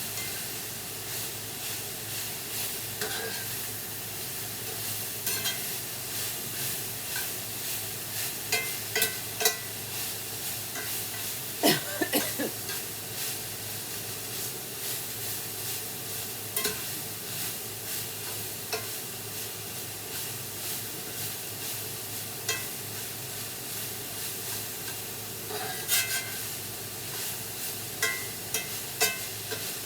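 Ground beef and chopped jalapeños sizzling steadily as they brown in a frying pan, with a utensil now and then knocking and scraping against the pan as they are stirred.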